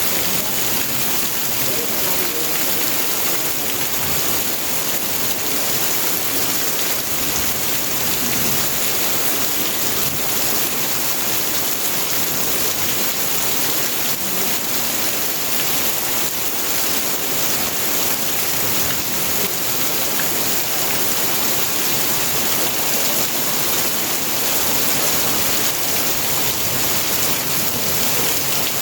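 Extreme heavy rain pouring down in a steady, dense, unbroken hiss.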